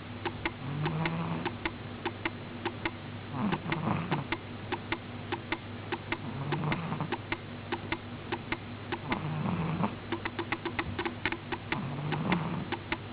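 A sleeping domestic cat snoring: about five slow, soft snoring breaths, each lasting roughly a second, over a fast run of sharp ticks.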